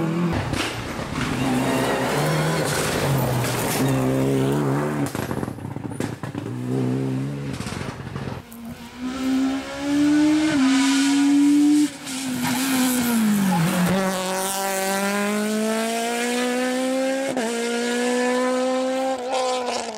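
Rally car engines revving hard through the gears at full throttle, with several cars in turn. Around 13 seconds in the pitch falls sharply as one car lifts off and slows, then climbs steadily again as it accelerates away.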